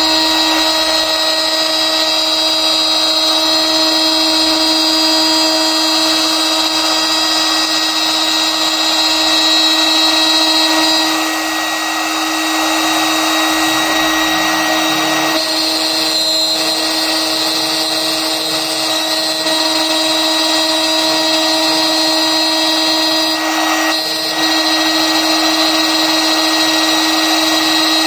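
CNC router's HSD electrospindle running at speed, its end mill cutting a contour into a PVC plate: a steady high whine over the hiss of the cut, easing briefly about eleven seconds in and again near the end.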